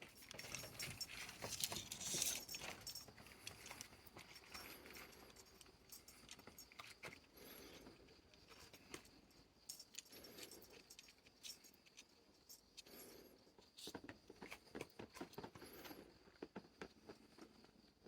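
Faint rustling, light rattling and scattered small clicks of a cat toy being handled and played with, busiest about two seconds in. A steady high insect drone runs underneath.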